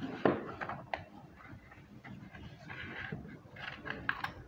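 Scissors cutting through a folded paper sheet, with several sharp snips of the blades.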